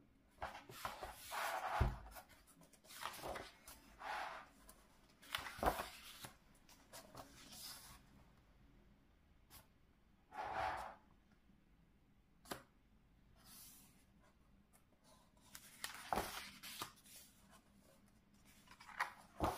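Pages of a large hardcover art book being turned and pressed flat: a series of separate paper swishes and rustles, with one short sharp tick about two-thirds of the way through.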